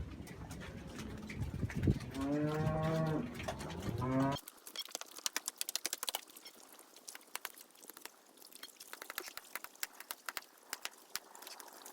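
A dairy cow moos once, a long call about two seconds in, then the sound changes suddenly to a run of sharp clicks and taps.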